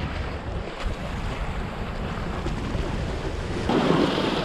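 Sea waves washing against shoreline rocks, with wind rumbling on the microphone; near the end a wave breaks and splashes over the rocks, the loudest moment.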